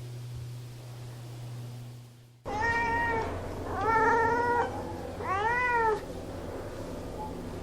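Domestic cat meowing three times: a short meow, a longer one, then one that rises and falls in pitch. Before the meows, a steady low hum cuts off suddenly about two and a half seconds in.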